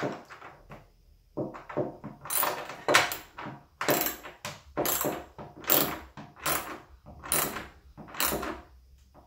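Ratchet wrench worked back and forth to tighten a bed-rail bolt, giving a short burst of ratchet clicks on each stroke, about one a second.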